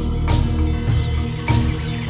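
Background music with a drum hit about every half second over sustained low bass notes.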